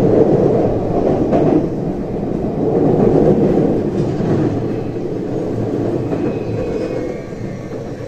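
Inside-the-car running noise of a JR West 323 series electric train slowing for a station stop: a steady rumble of wheels on rail that gradually fades, with a faint high whine coming in near the end.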